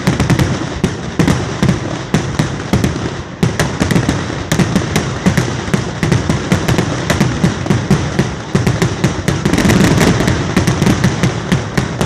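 Fireworks display going off in a rapid, unbroken barrage of bangs and crackles, several a second, getting louder around ten seconds in.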